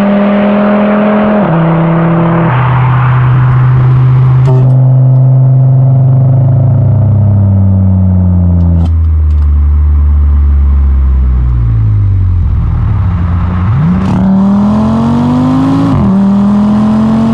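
Audi RS3 8Y's turbocharged five-cylinder through a Provocateur valved exhaust, pulling with several upshifts in the first few seconds. The pitch then falls slowly as the car slows. Near the end it revs up hard again, with one more shift.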